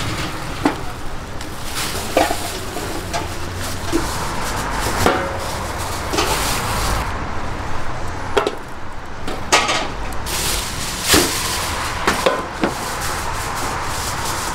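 Irregular knocks and clinks of metal trays, foil pans and utensils being handled on a stainless-steel counter, a dozen or so, some ringing briefly, over a steady low hum.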